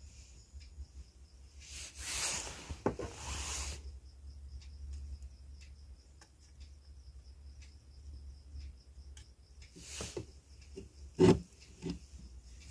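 Hand work on a home theatre amplifier board: rubbing and scraping with scattered small clicks, and one sharp knock near the end, over a steady low hum.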